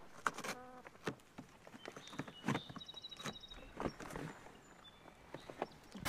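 Faint farmyard sounds: scattered light rustles and clicks, with a short animal call about half a second in and a faint high chirp around the middle.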